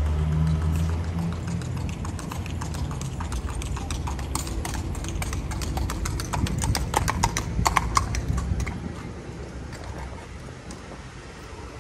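A horse's hooves clip-clopping on asphalt as it walks past. The hoofbeats grow louder to a peak about two-thirds of the way through, then fade as it moves away.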